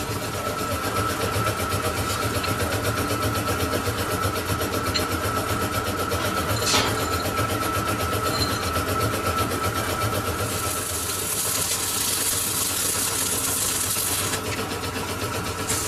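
Metal-turning lathe running steadily with a constant whine and low hum. There is a single sharp knock about seven seconds in, and a hiss from about ten to fourteen seconds in.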